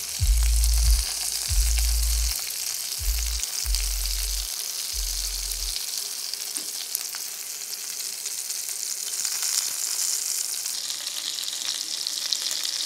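Marinated chicken pieces sizzling and crackling as they fry in oil and butter in a pan, being turned over with metal tongs. There are low rumbling thuds during the first six seconds.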